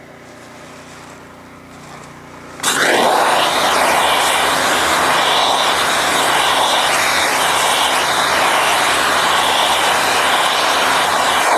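Steam weeder wand spraying near-boiling water at about 400 PSI onto weeds: a loud steady hiss that starts suddenly about three seconds in, over a low steady hum.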